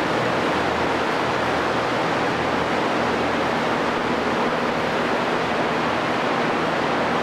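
Machinery running steadily on a demolition site: an even rushing noise with a low hum beneath it.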